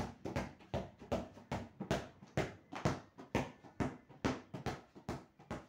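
A football (soccer ball) dribbled with one hand like a basketball on a hard floor, bouncing steadily about two and a half times a second.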